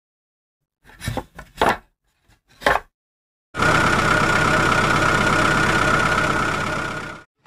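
A few short knocks, then a steady truck-engine running sound that starts suddenly about three and a half seconds in and cuts off just before the end.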